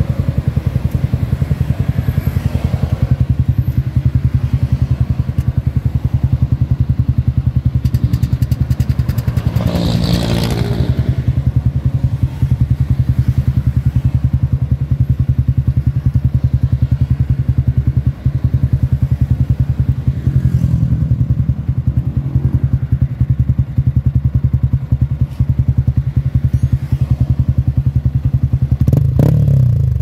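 Yamaha Sniper 155's single-cylinder four-stroke engine idling steadily through an MVR1 adjustable aftermarket muffler, with a brief change in the exhaust note about ten seconds in and a short rev near the end.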